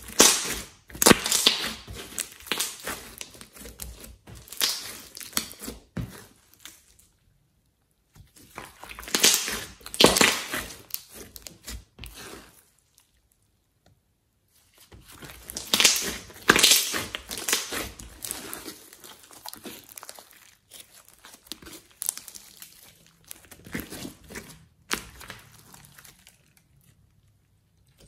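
Hands squeezing, pressing and stretching a large mass of orange slime mixed with clay: dense runs of small wet crackles and pops. They come in three stretches with short silent breaks between them.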